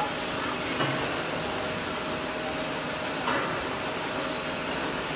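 QT12-15 concrete block-forming machine running: steady mechanical noise with a faint steady hum, and short clanks about a second in and just over three seconds in.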